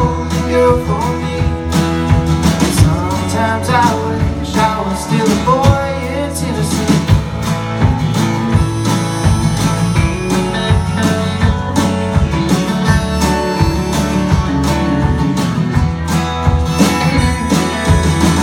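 Live band playing a country-Americana song: strummed acoustic guitar, electric guitars, bass and a steady drum beat. A sung line trails off in the first few seconds, and the rest is an instrumental break.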